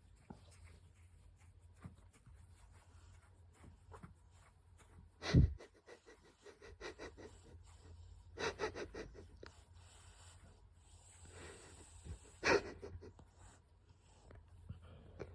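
A sleeping dog snoring: a few loud, rough breaths a few seconds apart, the loudest about five seconds in and another near the end, with a quick run of short breathy sounds in between.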